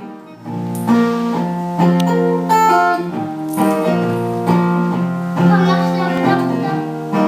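Live music: guitar chords played with held, ringing notes, the chord changing about every second.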